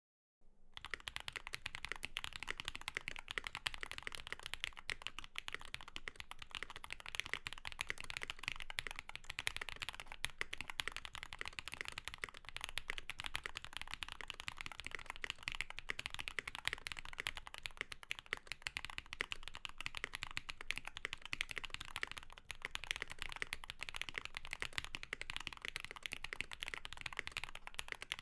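Continuous fast typing on a Laneware LW-67 custom mechanical keyboard with lubed and filmed Zaku switches, an aluminum plate, PE foam and GMK keycaps, a dense run of keystroke clicks that starts about half a second in.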